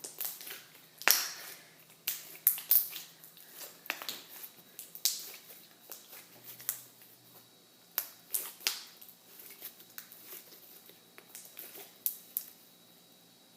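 Slime being squeezed and stretched by hand, making irregular wet clicks and pops as air bubbles in it burst.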